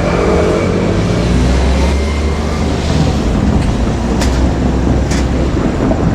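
KiHa 200 diesel railcar running, a steady low diesel hum with two sharp clicks about four and five seconds in.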